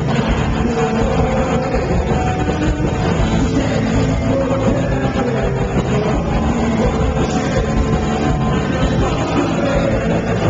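Punk rock band playing live: electric guitars, bass and drums, loud and continuous, with the singer's vocals on top.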